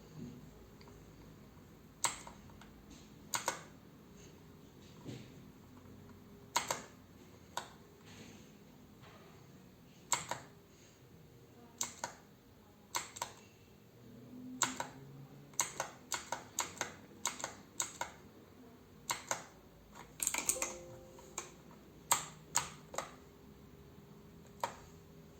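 Kinamax MK-89 mechanical keyboard with clicky blue switches, keys pressed one at a time at irregular intervals: sparse clicks at first, then quicker runs of presses in the middle and again near the end.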